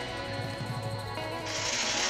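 Background music throughout; about one and a half seconds in, a loud hiss joins it as an angle grinder starts cutting into the steel air-compressor tank.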